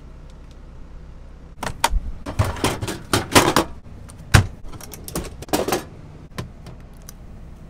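Clattering knocks and rattles of a cabinet door being opened and a two-burner electric hot plate being pulled out and handled, with one sharp knock about halfway through. After about six seconds only a few light clicks remain.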